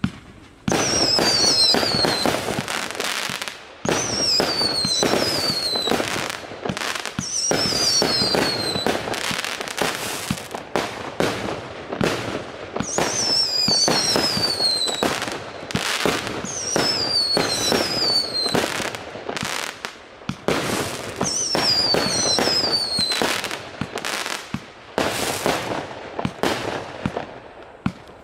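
A 99-shot fireworks cake of 1-inch (25 mm) calibre firing a rapid, continuous volley of launch bangs, with pairs of falling whistles every few seconds.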